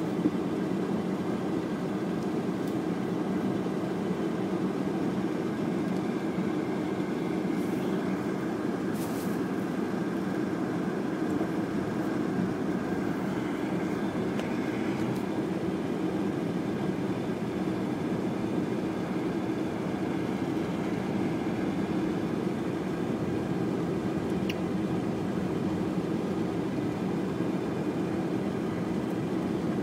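Steady car cabin noise while driving: the engine running evenly and the tyres rolling on a slushy, snow-covered road, heard from inside the car.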